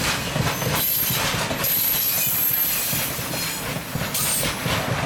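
Open high-sided freight wagons of a departing freight train rolling past, their wheels clattering over the rail joints. A thin, high wheel squeal comes in through the middle and again briefly about four seconds in.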